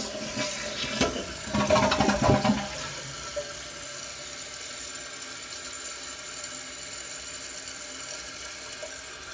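2012 Kohler Cimarron toilet flushing: a loud rush of water for the first two or three seconds, then a steady hiss as the tank refills quickly.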